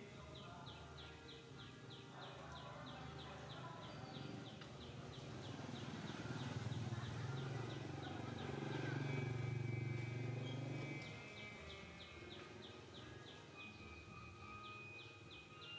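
Outdoor ambience: a high, regular chirping at about three a second for the first half and again near the end, with a low rumble that swells through the middle and fades.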